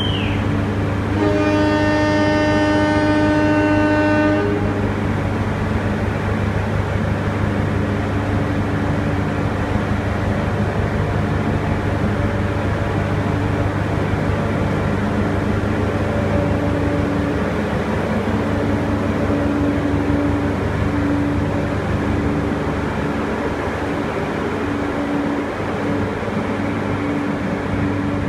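A train horn sounds one steady blast lasting about three seconds, over the steady low rumble of a passenger train.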